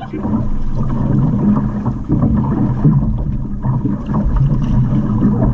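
Outrigger canoe (waka ama) under paddle: water washing and splashing along the hull and float, with wind buffeting the camera microphone.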